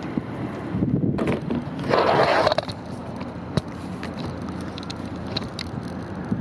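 Wind buffeting the microphone with a steady low rumble, a louder gust of hiss about two seconds in, and scattered sharp clicks.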